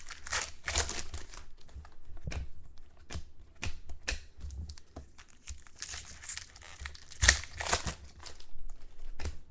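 Foil wrapper of a trading-card pack crinkling and tearing as it is opened and handled, with scattered light clicks; the sharpest crackle comes about seven seconds in.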